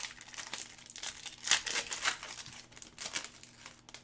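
Plastic wrapping of trading-card packaging crinkling and being torn open, irregular crackles with the loudest rips about one and a half to two seconds in.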